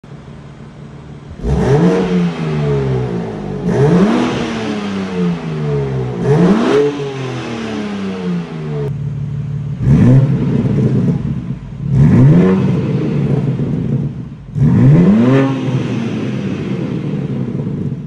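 2021 BMW M4 Competition's S58 twin-turbo inline-six idling on its stock exhaust, then blipped three times with the exhaust valves closed. After a brief break about nine seconds in, it is revved three more times with the valves open, a little louder.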